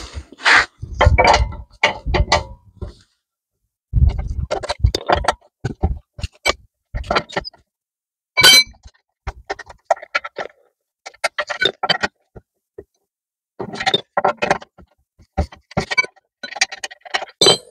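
Scattered metal clicks, clanks and knocks of a car being jacked up and its rear wheel bolts and wheel taken off by hand, with one short metallic ring about eight and a half seconds in.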